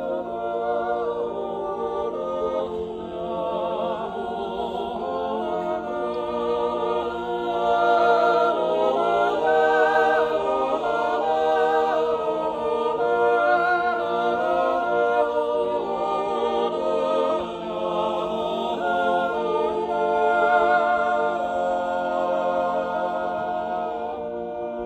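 Six-man male chorus singing an Appenzell Zäuerli, a wordless natural yodel, a cappella: a lead voice yodels over sustained chords held by the others. The singing swells louder twice and grows softer near the end.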